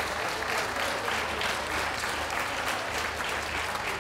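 A crowd of spectators applauding steadily, many hands clapping at once.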